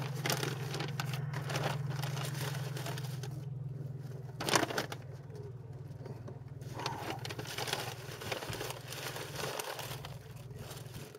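Paper sandwich wrapping crinkling and rustling as a sub is unwrapped by hand, with one louder rustle about four seconds in, over a steady low hum.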